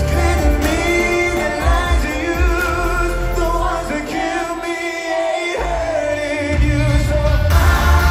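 Male pop vocal group singing live in harmony over a backing track, heard from the audience in an arena. The bass drops out about halfway through and comes back a couple of seconds later.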